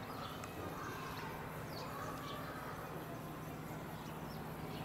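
Quiet outdoor background: a steady low hum with a few faint, short high chirps scattered through it.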